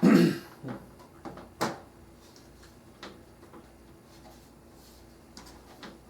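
Corsair 650D computer case parts being handled: a loud clunk right at the start, then a few lighter knocks and clicks over the following seconds.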